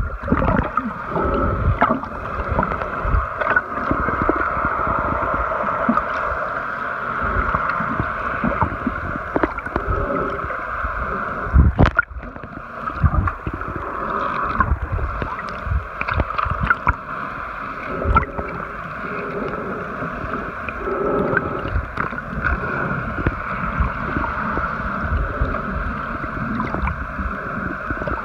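Muffled underwater sound picked up by a camera held below the surface: a steady hum with irregular gurgling and knocks, and one sharp knock about twelve seconds in.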